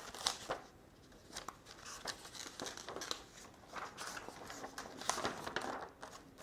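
Paper pages rustling as a book is leafed through: a run of soft crinkles and small flicks.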